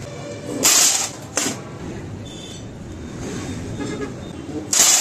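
Thin copper sheets being shifted and slid over one another, giving two short bursts of metal scraping and rattling, one about a second in and one near the end.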